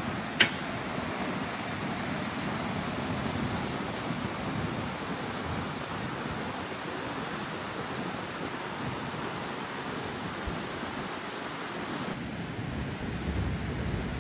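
Ocean surf washing onto the beach in a steady rush, the rough swell stirred up by a typhoon. A single sharp click sounds about half a second in.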